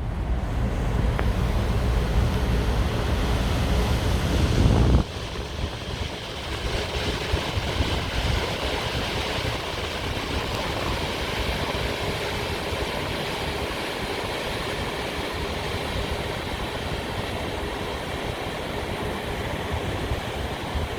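Wind rumbling on the microphone, stopping abruptly about five seconds in. After that comes a steady outdoor wash of noise with a faint, steady hum.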